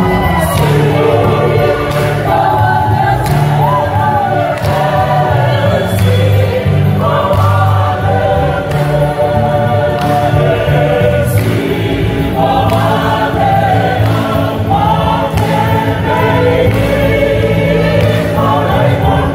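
Mixed choir singing in several-part harmony, women's voices leading over a deep, steady bass part.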